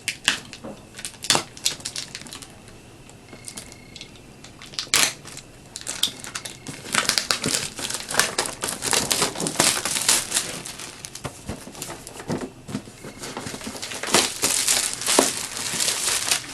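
Packaging being torn and pulled open by hand: irregular crinkling, crackling and tearing, with busier stretches in the middle and near the end.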